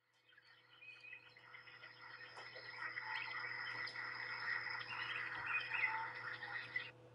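Nature ambience of many birds chirping. It fades in over the first few seconds and breaks off near the end.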